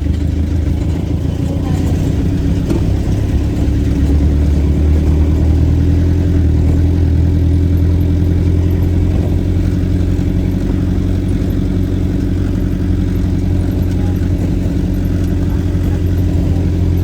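Vehicle engine running steadily under way, a continuous low drone.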